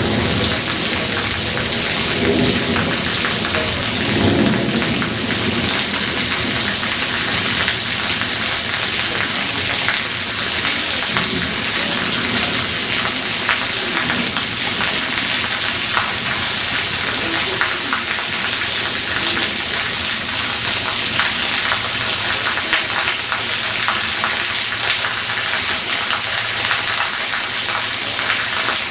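Heavy downpour of rain, a steady dense hiss, with thunder rumbling low a few seconds in.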